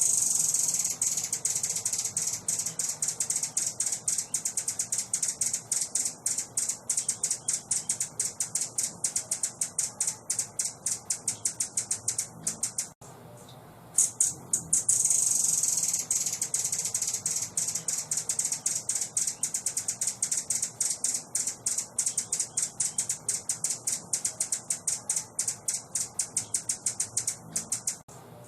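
A songbird's high, fast rattling trill, played as a training call for caged birds. It comes in two long phrases, each opening with a brief buzz and running on as an even rattle, with a short break about halfway and the second phrase repeating the first.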